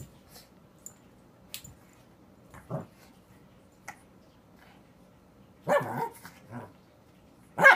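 A Pekingese puppy barking in short, sharp barks: a couple about three-quarters of the way in and the loudest right at the end. A few faint light ticks come earlier.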